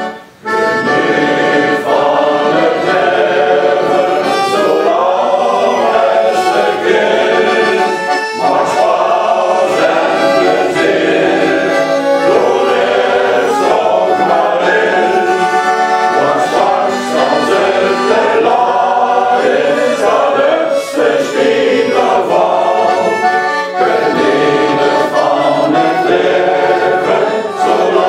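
A men's choir sings with an accordion accompanying them, starting about half a second in after a brief pause.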